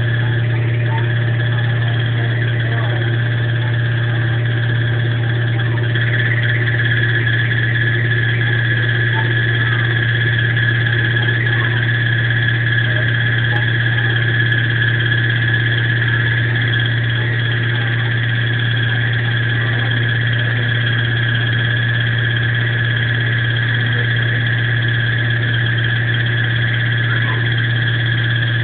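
Electrolux washing machine in its spin cycle, running with a loud steady low hum and a steady high whine above it: the abnormal noise it makes when spinning.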